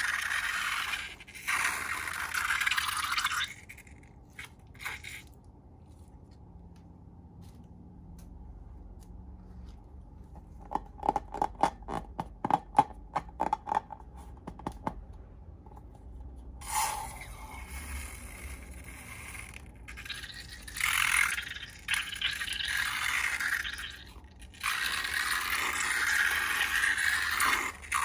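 Slime being worked by hand, with stretches of scraping, squelching hiss. A run of quick sticky clicks comes in the middle, and the scraping returns in longer spells towards the end.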